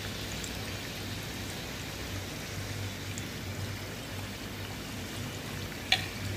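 Batata vadas deep-frying in hot oil in a pan: a steady sizzling. A short click comes near the end.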